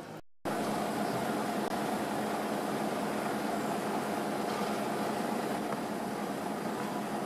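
Garbage truck's engine idling with a steady hum, starting after a brief gap at the edit.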